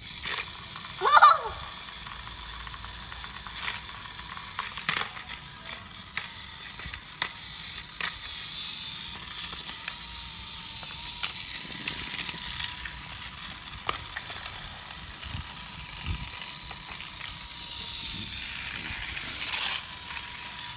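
Battery-powered motorised Thomas toy train running on plastic track: a steady whirring hiss with a faint whine and scattered small plastic clicks. A brief high squeal about a second in is the loudest sound.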